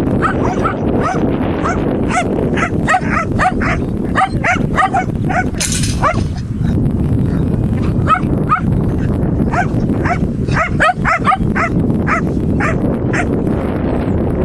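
Dog barking over and over, short sharp barks about two to three a second, over a steady low rumble.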